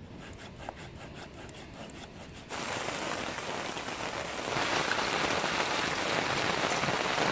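A small hand saw cutting a wooden pole in quick back-and-forth strokes, about five a second. About two and a half seconds in, this gives way to the steady hiss of heavy rain, which grows louder near the middle.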